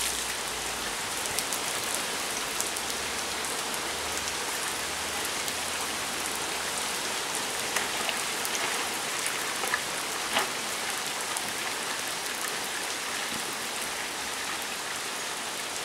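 Steady rain falling on a wet road and standing water, with a few louder drops or splashes about halfway through.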